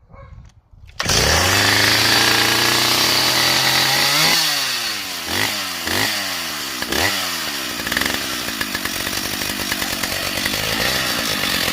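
Stihl 045 two-stroke chainsaw catching about a second in on a cold start and running steadily, its pitch creeping up. It is then revved with about four quick throttle blips and settles back to a steady idle.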